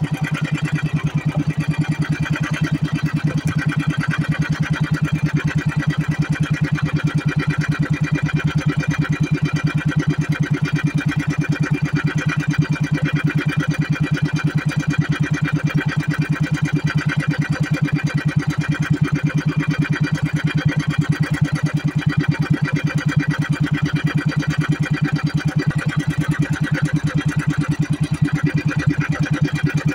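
Small outrigger boat's engine running steadily at cruising speed, a fast, even chugging.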